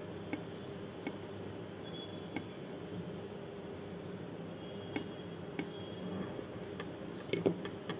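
Faint, irregular clicks and handling sounds of a metal crochet hook working yarn into half double crochet stitches, with a small cluster of clicks near the end, over a steady low room hum.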